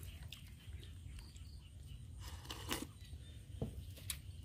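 Quiet eating at the table: a few faint, separate taps and clicks of chopsticks and bowls over a low, steady background hum.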